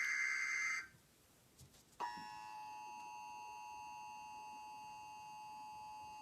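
Emergency Alert System tones on a weather radio broadcast. In the first second a harsh buzzing digital data burst ends: the tail of the SAME header that codes the alert. About two seconds in, a steady two-tone attention signal starts and holds, announcing the test tornado warning.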